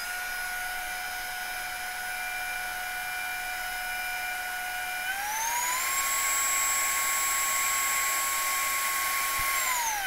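OPOLAR cordless blower/vacuum running in blow mode, its motor giving a steady high whine on the low setting. About five seconds in it is switched to full power: the whine steps up in pitch and gets louder as the motor spins faster. It winds down right at the end.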